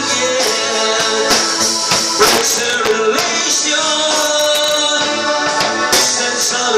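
Live band playing with a male singer, electric guitars and a drum kit with cymbal hits.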